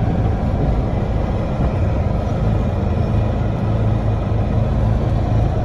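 Heavy diesel engine of farm machinery running steadily with a low, even hum.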